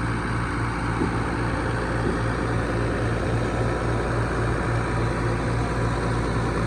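Hino RK260 bus's six-cylinder diesel engine idling steadily with an even low pulse.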